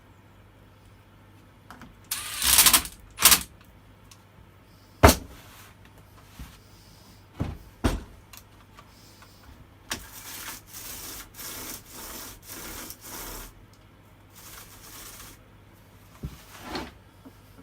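Chainsaw parts and tools being handled during a workbench repair: a rustle, a few sharp knocks, then a run of about six short scraping or rubbing strokes.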